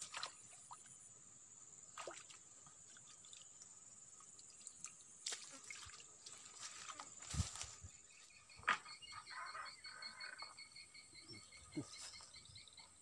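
Quiet swamp-side ambience: a steady high hum runs throughout, with scattered faint clicks and a couple of sharper knocks past the middle. From about two-thirds of the way in, an animal calls in rapid, even pulses, repeating steadily.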